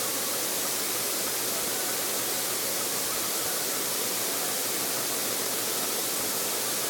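Steady, even hiss at a constant level, with no other sound over it.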